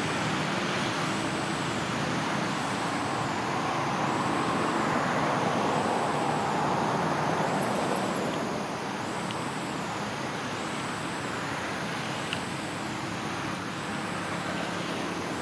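A motor running steadily: an engine-like low hum under a constant hiss. A faint high warbling tone rises and falls about once a second.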